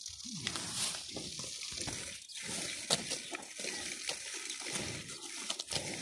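Cows grazing up close: repeated ripping and crunching as they tear off and chew mouthfuls of grass, with a few sharp clicks.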